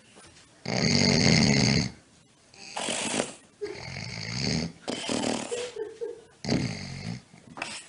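Snoring: one loud, long snore about a second in, then a run of shorter, quieter snores and breaths.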